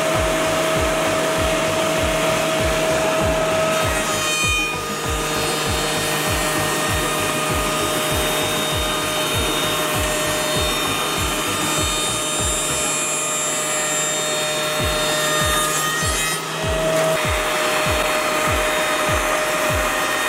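Wood milling machine's cutter spindle running at a steady whine while cutting wood, with a hissing rasp of the cut. The pitch dips briefly about three quarters of the way through, and a regular low thump beats about three times a second underneath.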